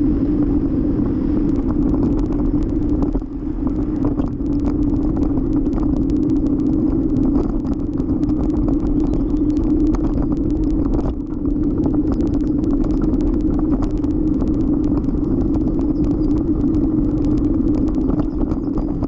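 Bicycle riding on pavement: steady wind rush and tyre rumble on the microphone, with a continuous hum and a fast, irregular stream of light clicks and rattles.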